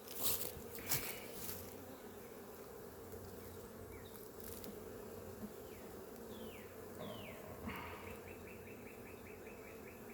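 Honeybees buzzing steadily around an opened hive, with a couple of sharp knocks in the first second as the hive is handled.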